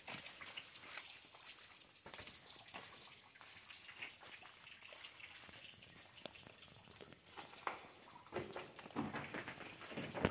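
Faint, irregular footsteps scuffing and clicking over rock and leaf litter, with a louder scuff near the end.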